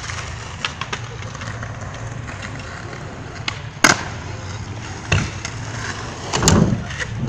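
Stunt scooter wheels rolling over concrete, with a few sharp clacks and a heavier clatter as the scooter strikes the ground during tricks. The loudest clack comes just under four seconds in.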